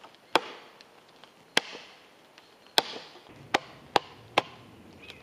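Axe chopping into a round of wood, carving away wood to shape a log stool: three strikes about a second apart, then three quicker chops in a row near the end. The blows are taken carefully because the wood has begun to split.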